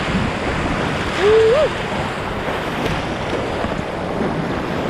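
Whitewater rapid rushing and churning around the kayak, with wind buffeting the helmet-camera microphone. About a second in, a brief rising vocal sound cuts through the water noise.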